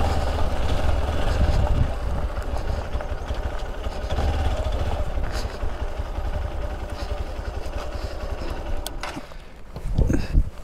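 Hero XPulse motorcycle's single-cylinder engine running at low revs, with wind rumbling on the microphone. The sound eases off about nine seconds in, and a louder gust of rumble comes near the end.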